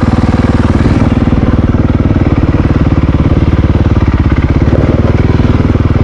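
Honda CRF450RL dirt bike's single-cylinder four-stroke engine running at low, steady revs, an even pulse with no revving.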